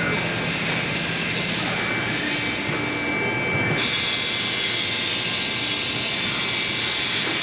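Haas TM-1 CNC toolroom mill running with a steady whirring noise and thin high whines; a higher whine comes in about halfway through and stops at the end.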